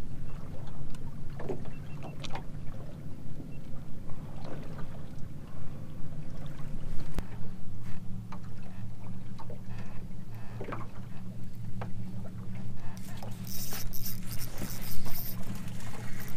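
A boat's motor hums steadily, its pitch shifting about seven seconds in, with small knocks and slaps of water against the hull. A brief hiss comes near the end.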